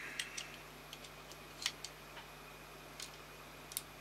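Scattered light clicks and taps of small hard parts being handled, the sharpest about one and a half seconds in, over a faint steady hum.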